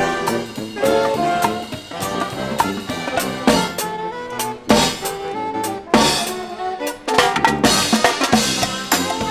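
Marching band playing: sousaphones and saxophones over snare drums and a bass drum with a cymbal, with heavy drum-and-cymbal hits about once a second in the middle.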